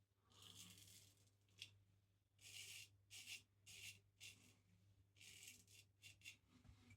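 Razor strokes scraping through lathered stubble: a series of short, faint, hissy scrapes, about one a second.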